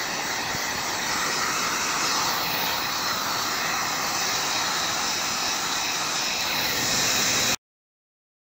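Handheld heat gun running steadily, its fan blowing hot air over painter's plastic to melt it onto a skeleton. The sound cuts off suddenly near the end.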